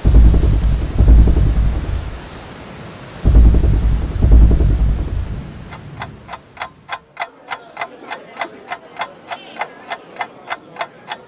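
Two heavy rolls of thunder, then a clock ticking steadily, about four ticks a second, for the second half.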